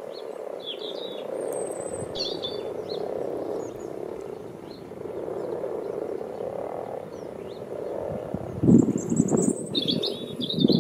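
Massed chorus of common frogs croaking in a steady low drone, with small birds chirping now and then above it. Wind buffets the microphone in gusts near the end.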